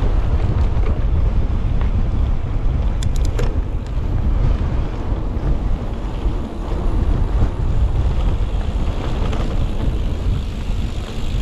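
Wind buffeting the microphone, with steady low rumble from a mountain e-bike rolling along a trail. A quick run of sharp clicks comes about three seconds in.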